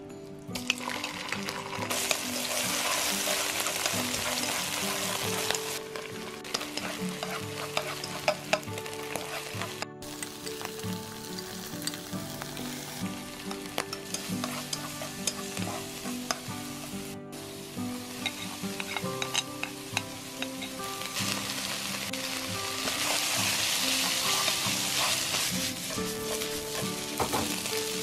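Food sizzling in hot oil in a wok while being stir-fried, with a spatula scraping and clicking against the pan. The sizzle swells loud twice, near the start and again near the end.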